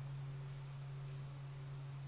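A steady low hum, even in level, with nothing else standing out.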